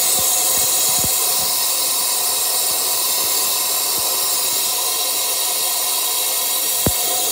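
Steady hiss of compressed air feeding into the cracked and resin-repaired big-block engine block for a soap-and-water pressure test, with a few light taps.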